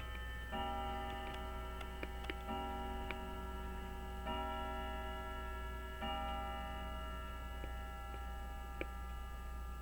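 Small sharp clicks of watchmaker's tools against pocket watch movement parts while a tiny screw is being driven, scattered at irregular moments, over faint sustained tones that shift every couple of seconds and a low mains hum.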